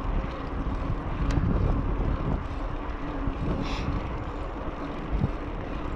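Wind rushing over the microphone and the tyres of a bicycle rolling on tarmac while riding, a steady low rush with a faint hum. A brief high hiss sounds just before the middle.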